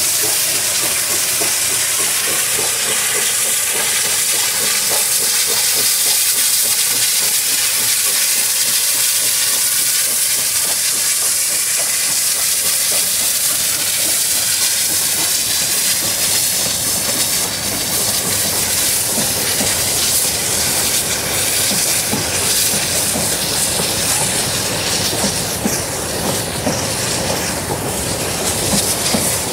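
China Railways QJ class 2-10-2 steam locomotive passing with a train of coal hoppers, giving a steady loud hiss of steam. In the second half the wheels of the hopper wagons click and clatter over the rail joints as they roll by.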